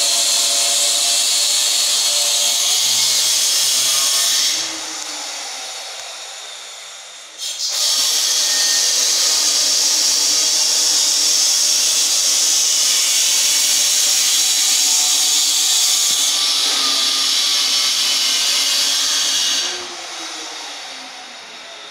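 A handheld power tool running loud and high. It switches off about four and a half seconds in and winds down, starts again about three seconds later, and near the end switches off and winds down once more.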